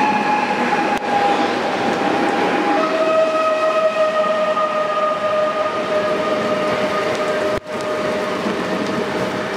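PESA Dart electric multiple unit passing close by, its electric traction whine sliding slowly lower and stepping down to a lower pitch about three seconds in as the train slows. Underneath is a steady rush of the train running and heavy rain.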